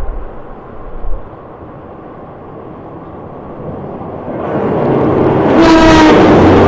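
A train approaching and rushing past close by, its rumble building to a loud roar in the last couple of seconds. A short horn blast sounds about six seconds in, dipping slightly in pitch as the train passes.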